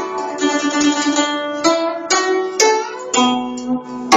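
Chinese zither played by hand: plucked notes ringing and overlapping, with sharp new plucks about every half second in the second half.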